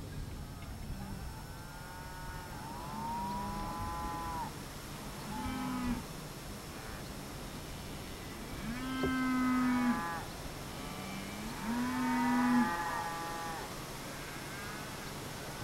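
Cattle mooing: about five long, drawn-out moos one after another, the loudest two about halfway through and a little later.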